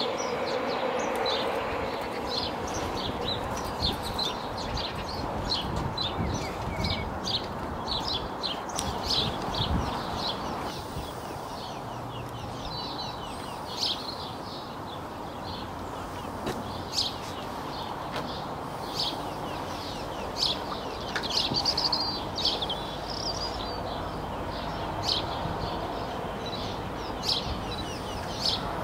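Birds chirping, many short calls in quick succession, over a steady background noise.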